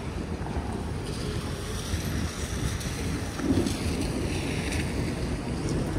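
Outdoor city ambience: a steady low rumble of wind and distant traffic, with a faint hiss in the middle stretch.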